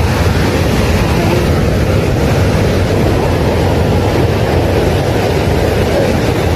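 Loud, steady beach noise: surf with wind rushing over the microphone, deep and even throughout.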